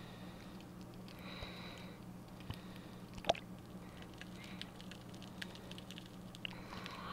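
Water heard muffled through a GoPro's waterproof housing as it goes under the surface: faint sloshing and crackling with scattered sharp clicks, the loudest about three seconds in, over a steady low hum.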